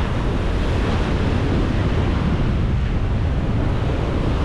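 Ocean surf breaking and washing up a sandy beach, a steady hiss of water, with wind buffeting the microphone as a constant low rumble.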